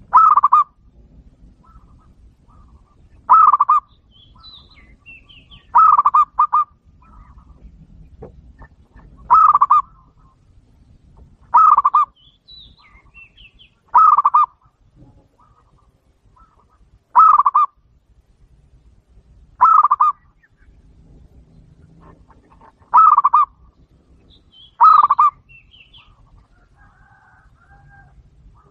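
Zebra dove (perkutut) cooing its song: short bursts of quick notes repeated every two to three seconds, about ten times, with faint chirps from other birds between.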